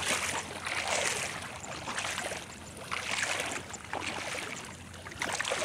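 Shallow water sloshing and splashing around the legs of people wading through it while dragging a fishing net, in swells about once a second with each stride.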